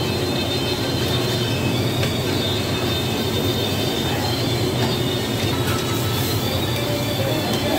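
Steady roar of a commercial kitchen's high-pressure gas burner under a kadai, with crabs and masala sizzling in the pan.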